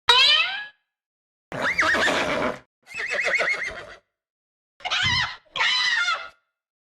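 A string of five short horse-whinny sound effects, each a wavering, whinnying call that cuts off abruptly, with dead silence between them.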